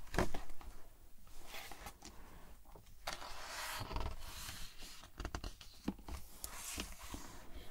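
A page of a large hardcover picture book being turned by hand: paper rustling and sliding, with a sharp rustle at the start and a longer one in the middle as the page goes over, then the fingers smoothing it flat.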